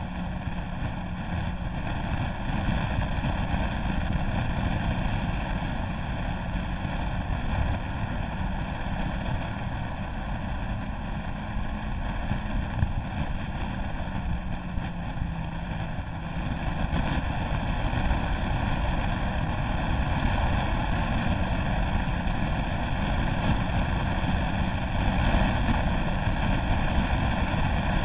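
Motorcycle on the move at road speed: wind rushing over the microphone with a steady engine drone underneath, getting louder a little past halfway.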